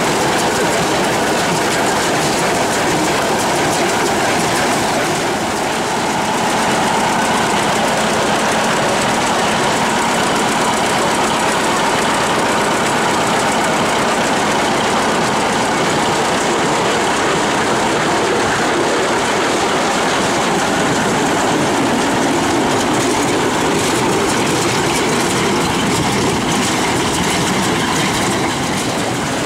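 Harvest machinery running steadily: a loud, dense, continuous mechanical clatter with engine noise underneath.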